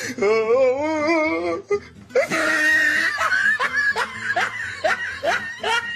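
A wobbling, warbling voice-like note for the first second and a half. Then, about two seconds in, hearty laughter starts: a run of short rising 'ha' pulses, two or three a second, with a wheezy edge.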